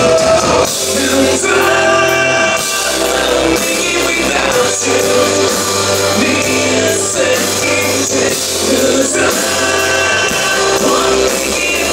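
Live rock band with a male lead vocal singing over bass, guitar and drums. About a second in, the dense drumming drops away to a sparser passage with long held bass notes under the voice.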